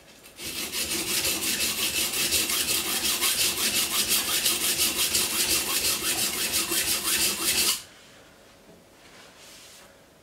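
A large steak knife blade rubbed flat on a bench stone in quick, even back-and-forth strokes, about six a second, to thin the blade behind its edge. The scraping stops abruptly, followed by a brief soft rustle.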